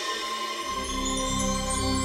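Soundtrack music of sustained, held tones; deeper notes join about half a second in.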